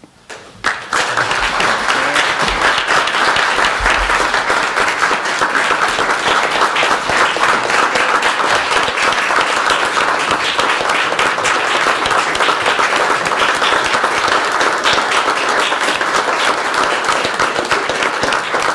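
A room full of people applauding, many hands clapping together; the applause breaks out about a second in and keeps up at a steady level.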